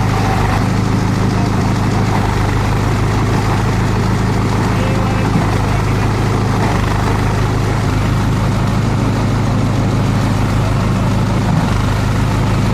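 Multi-purpose chopper-shredder-grinder machine running with a steady, unchanging low drone.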